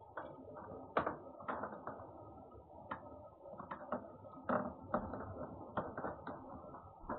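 A cat eating: a string of irregular, crisp crunches and clicks of chewing, about two a second, some louder than others.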